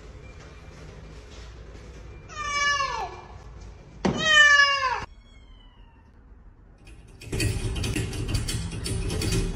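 Domestic cat meowing twice, two long calls each falling in pitch, the second louder. Near the end, loud music with a beat starts.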